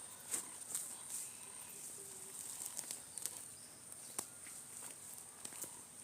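Rural outdoor ambience: a steady high-pitched insect drone, with scattered sharp clicks and a few short, faint animal calls.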